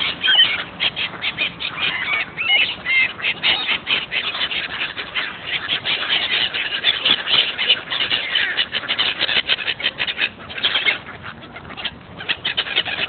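A flock of black-headed gulls and mallards calling over one another as they crowd in to be fed: a dense run of short cries with ducks quacking among them. The calling thins out about eleven seconds in.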